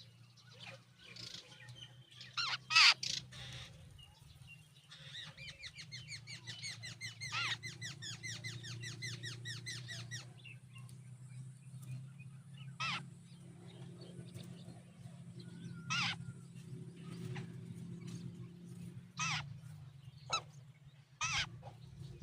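Jungle babblers calling at the nest. A fast run of chirps lasts several seconds in the first half. Single sharp calls come every few seconds after it, over a steady low hum.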